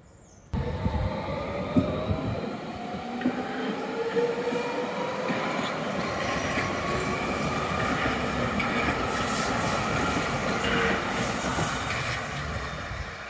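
Hamburg U-Bahn electric train running away along the track, with rumbling wheel noise and a motor whine that rises slowly in pitch as it gathers speed. The sound comes in suddenly about half a second in and eases off near the end.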